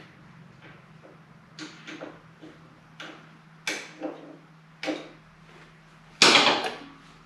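Hand tools knocking and clinking on metal in a string of short, irregular knocks, with a louder, longer rattle a little over six seconds in.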